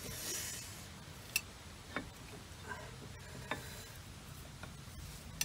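A few light, separate metallic clicks and taps of tools and parts being handled, with a short scraping hiss at the start.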